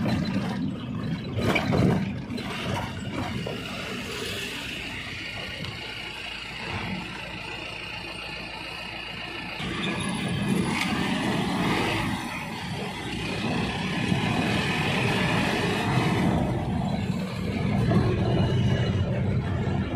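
Pickup truck's engine and road noise heard from inside the cab: it rolls slowly at first, then pulls away and picks up speed about halfway through, growing louder.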